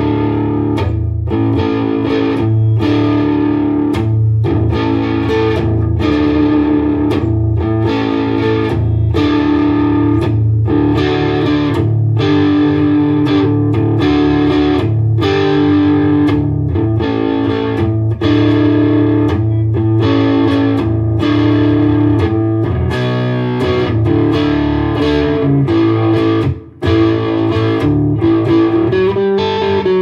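Vintage V100 Les Paul-style electric guitar through a Fender Mustang GTX100 modeling amp with some drive: a looped chord rhythm repeating about once a second, with lead lines played over it. The sound drops out for a moment near the end.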